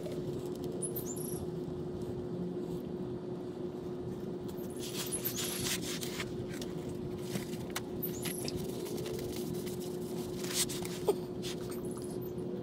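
Oil filter pliers working a spin-on oil filter loose, a few scrapes and clicks about five seconds in and again near the end, over a steady low hum. Short high chirps now and then.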